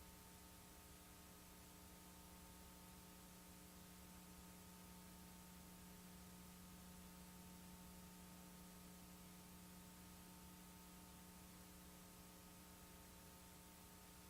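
Near silence: a steady electrical hum over faint hiss, unchanging throughout.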